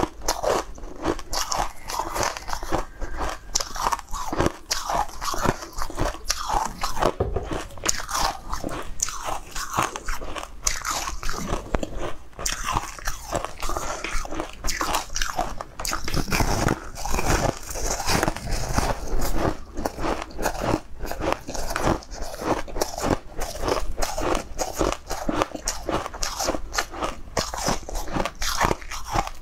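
Close, crisp crunching and chewing as a person bites into a hard purple crystal candy, a dense run of irregular crackling crunches picked up by a clip-on microphone.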